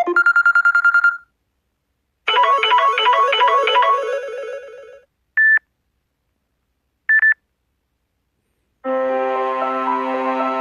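Samsung Galaxy S6 edge+ ringtones and alert tones played one after another. A fast pulsing electronic tone lasts about a second, then a short chiming melody fades out, a single short beep and a quick double beep follow, and a sustained chord of synthesized notes begins near the end.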